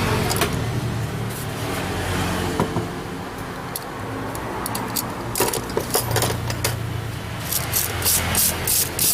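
Small engine running steadily at a low idle, settling after being revved. From about five seconds in, a series of sharp metallic clicks and knocks sounds over it, quickening near the end.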